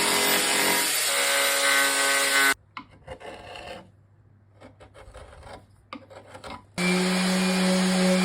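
Woodworking tool noise on wood: a power tool runs loudly, cuts off suddenly, and gives way to quieter scraping and light knocks. About two-thirds in, a power tool with a steady hum starts working the wood again.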